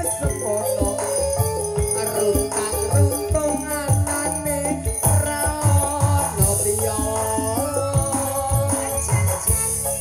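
Live campursari music: a gamelan ensemble with regular low kendang drum strokes and ringing metallophones, with a singer's voice wavering over it.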